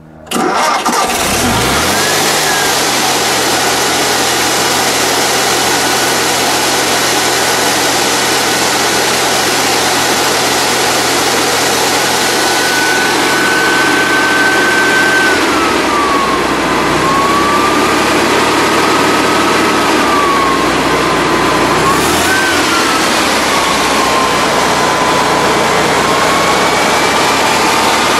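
A 1949 Volkswagen Hebmüller's 1131 cc, 25 hp air-cooled flat-four starts up and catches within the first second or two, then runs steadily with the high whine of its cooling fan over it. In the second half the revs rise and fall a few times, with one quick blip near 22 seconds.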